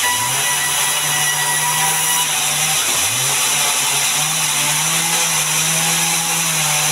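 Large sawmill band saw running with a steady whir and hiss. A low hum under it sags and climbs back up just after the start and again about three seconds in.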